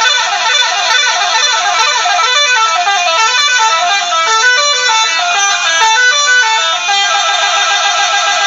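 Loud Indonesian "telolet" multi-tone bus horn playing a quick tune, its notes stepping rapidly up and down. About seven seconds in the tune changes to a more even repeating run.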